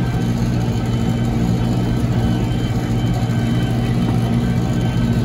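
Tractor engine running steadily at an even pitch while pulling a wheel hay rake through cut hay.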